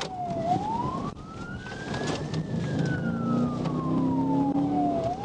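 Police car siren in wail mode, one tone sweeping slowly down, up and down again, about once every four and a half seconds, over the engine and road noise of the pursuing police car at speed.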